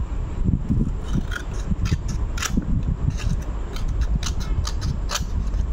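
Scissors cutting along the edge of a folded sheet of paper, trimming off a thin strip: a string of short, crisp snips at an uneven pace, over a low rumble of the paper being handled.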